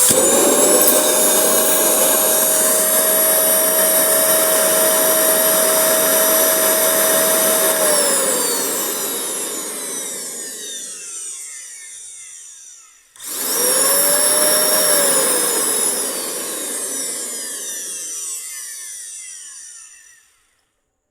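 Dental vacuum former's vacuum motor running with a steady whine, then spinning down with falling pitch about eight seconds in; it is switched on again about thirteen seconds in, runs briefly and winds down once more. The suction is drawing the heat-softened 3 mm plastic sheet down over the dental cast to form a night guard.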